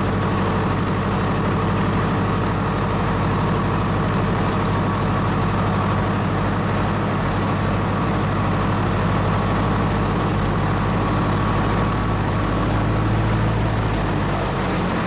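Piper Super Cub's air-cooled flat-four engine and propeller idling steadily, heard from inside the cockpit.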